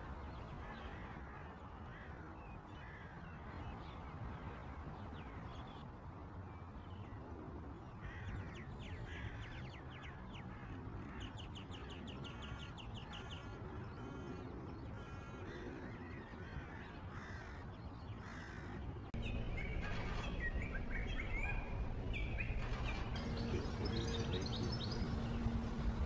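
European goldfinches twittering and calling: runs of rapid chirping notes and short calls, busiest in the middle, over a low outdoor rumble that gets louder a little past halfway.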